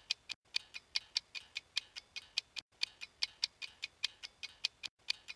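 A ticking clock, fast and even at about five ticks a second, marking the wait while the cheesecake bakes.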